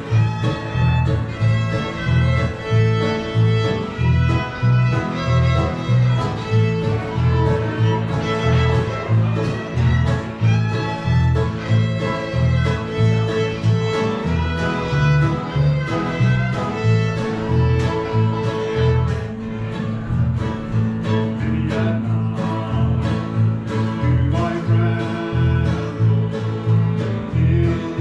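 Live acoustic bluegrass band playing with no singing: fiddle, strummed acoustic guitars, banjo, mandolin and upright bass, the bass notes pulsing steadily on the beat.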